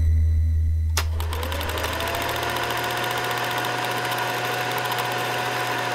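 A deep low drone, then about a second in a click and a film projector starting up: its motor whine rises briefly and settles to a steady pitch over a fast, even clatter.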